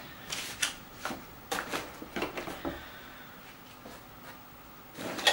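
Unpacking noises: paper and packaging being handled and rustled, as a series of short rustles and light clicks over the first three seconds, then quieter until it picks up again near the end.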